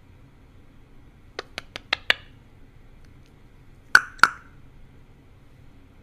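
Male Eclectus parrot making a quick run of five sharp clicks that grow louder, then about two seconds later two loud mouth pops in quick succession.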